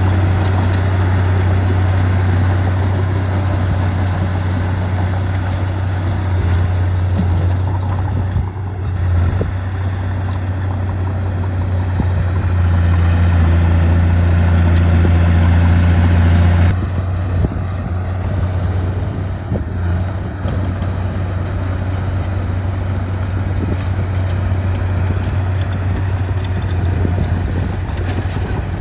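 Heavy earthmoving machine's diesel engine running with a deep steady drone, working harder for a few seconds past the middle before dropping back suddenly.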